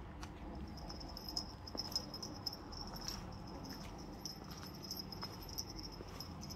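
High, steady insect-like chirring starting about half a second in, with a few faint clicks.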